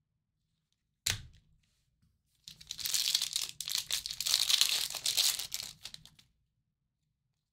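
A sharp snap about a second in, then about four seconds of crinkly plastic being torn and crumpled: a 2023 Topps Tribute trading-card pack wrapper being ripped open.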